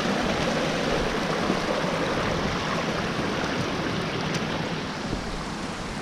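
Small snowmelt stream splashing and trickling over rocks: a steady rushing hiss that grows a little fainter near the end.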